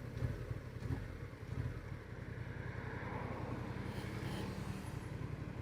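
Honda Transalp XL750's parallel-twin engine running, a steady low rumble.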